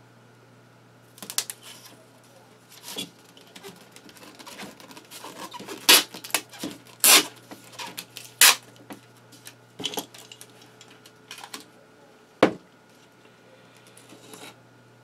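Clear packing tape being pulled off the roll in short, sharp rips and pressed down onto a foamboard wing to reinforce the elevon hinge, with handling clicks and taps between the rips.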